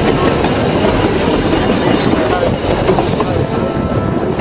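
Puffing Billy narrow-gauge steam train running along the track, a loud, steady noise of wheels and carriage heard from the open side of a passenger carriage.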